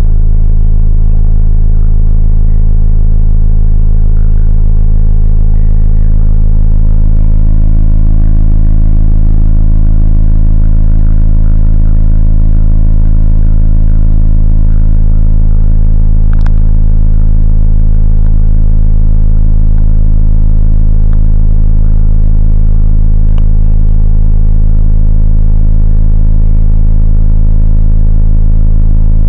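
Volvo V50's 1.6-litre four-cylinder turbodiesel idling steadily, heard from inside the cabin as a deep, even drone that is very loud on the recording.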